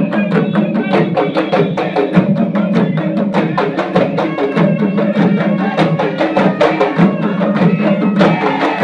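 Large ensemble of Kerala chenda drums beaten with sticks, a dense, fast, steady rhythm of sharp stick strikes over a low drum boom.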